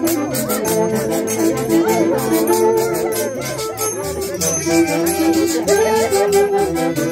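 Traditional Andean folk music for dancing: a melody in held, stepping notes over a quick, steady percussion beat.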